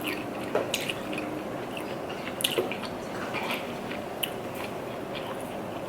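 Close-miked chewing and mouth sounds of a person eating, with a few sharp wet clicks and smacks scattered through, the loudest about two and a half seconds in.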